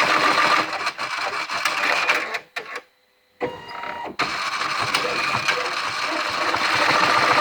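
A machine running with a rapid, rhythmic clatter that weakens, cuts out briefly about three seconds in, then starts again and builds back up to full running.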